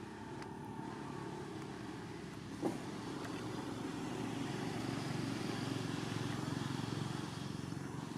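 A motor vehicle's engine rumbling nearby, slowly growing louder, with one sharp click about two and a half seconds in.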